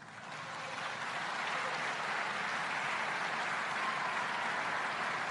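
Audience applauding, swelling in over the first second or so and then holding steady.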